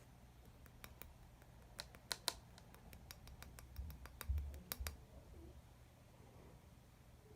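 Clear slime being handled, giving a scattering of sharp sticky clicks and pops, most between about one and five seconds in, with a few dull low thumps near the middle.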